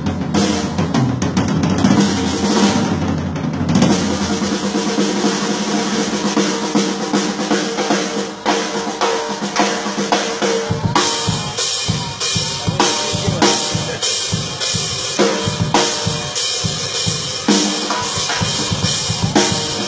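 Drum kit played with busy, fast strokes on snare, bass drum and rims over steady pitched music. The strikes turn sharper and more distinct about eleven seconds in.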